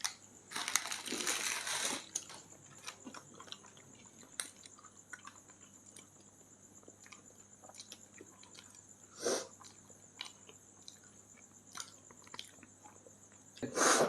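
People chewing and eating, with soft crunches and scattered small clicks. A longer crunchy rustle comes about half a second in, and another short one near the middle.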